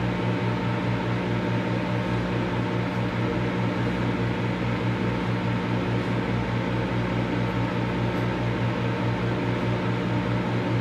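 Microwave oven running: a steady electrical hum with a fan-like hiss, and a quick even pulsing in the low hum.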